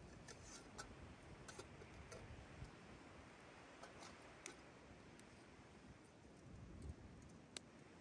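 Faint wood campfire crackling: scattered, irregular sharp pops and ticks over a quiet steady hiss, the sharpest pop near the end.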